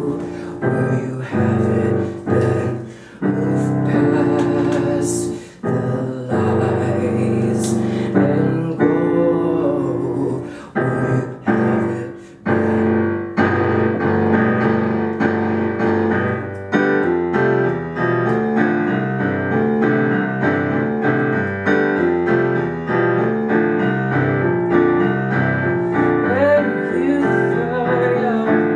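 Live digital keyboard playing in a piano voice. It begins with slow held chords broken by short pauses, then from about halfway settles into a quicker, steady pattern of repeated chords.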